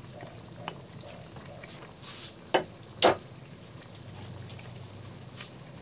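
Creamy white sauce simmering in a nonstick pan with faint sputtering, and a wooden spatula knocking sharply twice, about half a second apart, near the middle.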